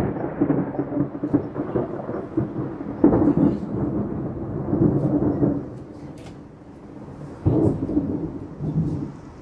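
Thunder rolling in several long rumbling swells, the loudest at the start and again about three and seven and a half seconds in, fading away at the end.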